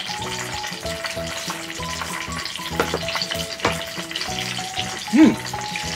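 Tempura deep-frying in hot oil: a steady sizzle, with background music playing over it. Two light clicks come near the middle.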